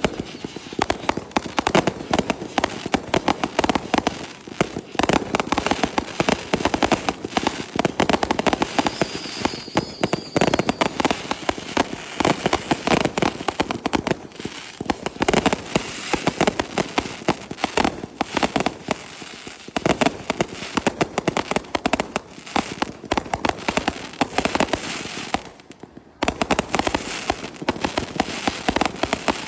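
Aerial fireworks: a dense, continuous barrage of bangs and crackles, many per second, with a brief pause about 26 seconds in.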